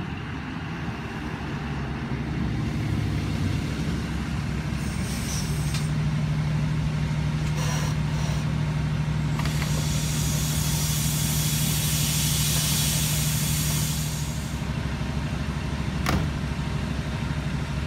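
Endeavour diesel railcar pulling into the platform and stopping, its diesel engine running with a steady drone. A long hiss of air sounds about halfway through, and a sharp click comes near the end.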